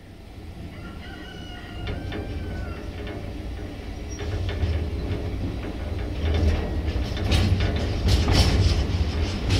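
Low rumble of the freight train's Thomas LDH1250 diesel-hydraulic locomotive, growing steadily louder. A short high-pitched call comes about a second in, and a run of sharp knocks follows in the last few seconds.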